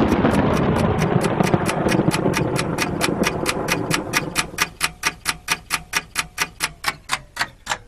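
Clock ticking sound effect, sharp even ticks about four a second, over a loud burst of noise at the start that fades away over about four seconds.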